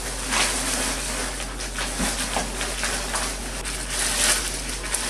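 Plastic bag and bubble wrap rustling and crinkling in irregular bursts, with the scrape of cardboard, as the packaging is pulled out of a cardboard box.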